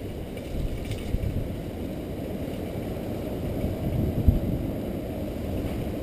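Strong typhoon wind buffeting the camera's microphone: a low, uneven rumble that swells with the gusts, strongest about four seconds in.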